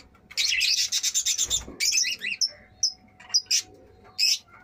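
Caged Fischer's lovebirds chattering: a dense burst of shrill chirping for about the first second and a half, then separate sharp high chirps.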